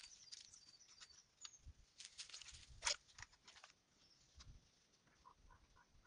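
Wooden stick stirring wet clay slurry in a bucket: faint scattered knocks and scrapes, the loudest about three seconds in.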